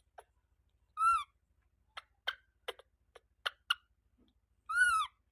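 Baby monkey calling: two high squeals that rise and fall in pitch, about four seconds apart, with a few short sharp clicks or chirps between them. The monkey is thirsty and waiting for milk.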